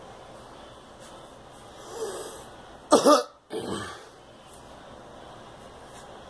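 A girl coughing: one loud cough about three seconds in, followed closely by a weaker second cough.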